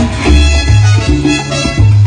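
Salsa music playing, an instrumental passage with a strong bass line moving about twice a second.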